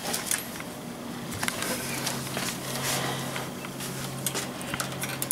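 Light clicks and rustling from wiring and zip ties being handled, over a steady low hum that starts about a second and a half in.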